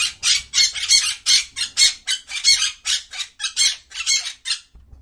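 Parrot squawking in a rapid series of harsh calls, about four a second, stopping shortly before the end.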